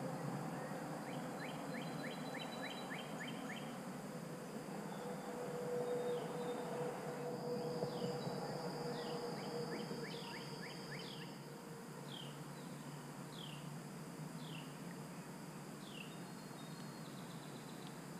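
Faint river-side ambience with birds singing: a quick trill of about ten notes near the start, then short downward-sliding whistles repeated about once a second through the middle, over a steady high hum.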